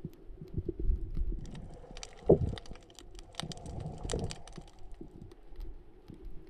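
Underwater sound picked up through a camera's waterproof housing: irregular low thumps and rumble from the diver's movement, with a scatter of sharp clicks in the middle. The loudest knock comes a little over two seconds in.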